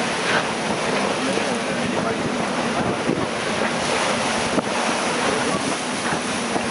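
Wind buffeting the microphone over the steady rushing of breaking water around a racing yacht's hull as it sails hard through rough sea.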